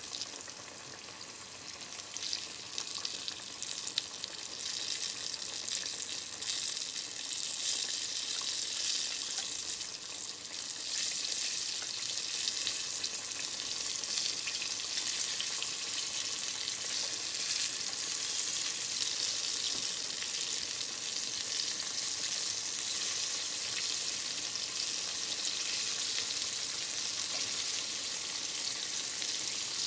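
Battered tempura frying in hot oil in a small pan: a steady crackling sizzle that grows a little louder over the first few seconds and then holds.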